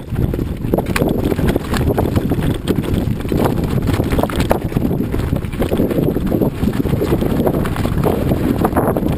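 Mountain bike rolling down a loose gravel road: tyres crunching over stones and the bike rattling with a steady run of small clicks and knocks.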